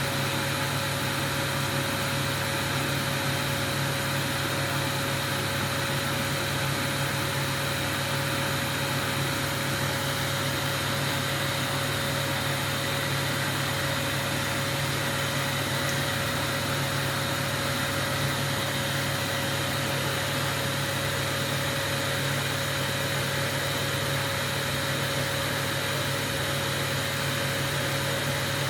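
Glassblowing workshop equipment running steadily: a continuous hissing rush with a low hum and a faint steady whine, unchanging throughout.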